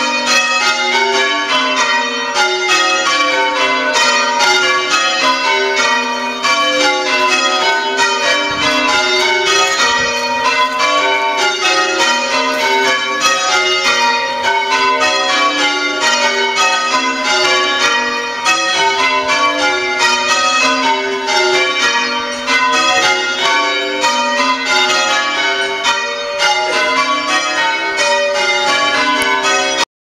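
A ring of church bells in the tower, rung full circle in English change ringing: bells of different pitches struck one after another in a fast, unbroken sequence.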